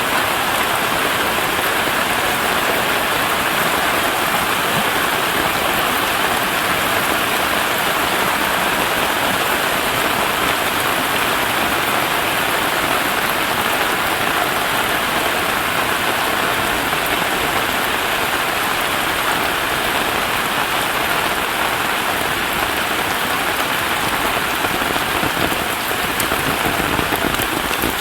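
Heavy rain falling steadily, a dense, even hiss that holds at the same level throughout.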